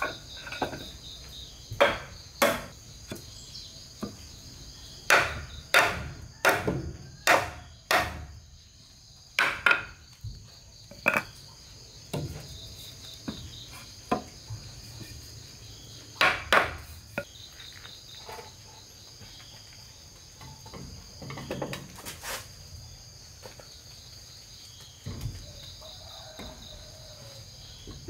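Hammer blows on wood, irregular single strikes that come thickest in the first ten seconds and grow sparser later, over a steady high buzz of insects.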